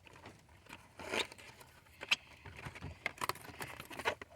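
Foil wrapper of a Pokémon card booster pack crinkling and crackling as it is handled and torn open, in irregular rustles with sharper crackles about one, two and three seconds in.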